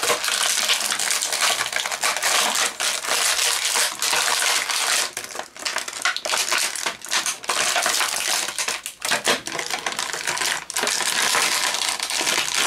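Stiff plastic packaging crinkling and crackling in a dense run of sharp crackles and clicks as an action figure is worked loose from its tray by hand. The figure is tightly stuck.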